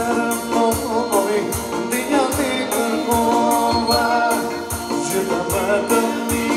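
Live Albanian wedding song: a male singer over electronic keyboard with a steady, even drum beat.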